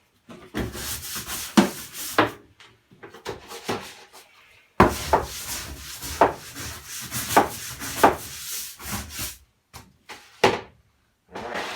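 A hand tool scraping and rubbing at wood in repeated strokes, in bunches with short pauses between, as dry-rotted wood is cleaned out.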